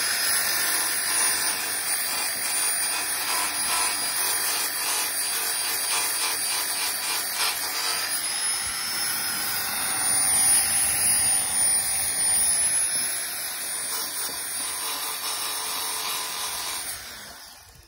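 Electric finger (belt file) sander running against a rusty steel door sill, grinding it down to bare metal: a steady high whine with rasping that wavers a little in pitch as the belt is pressed on. It winds down and stops just before the end.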